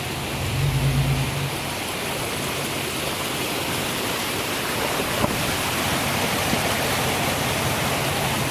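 Steady rushing of river water, an even hiss, with a brief low rumble about a second in and a single sharp click about five seconds in.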